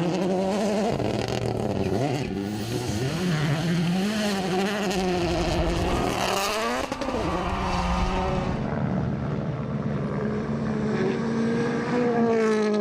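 Rally car engines revving hard, their pitch climbing and falling again and again through gear changes.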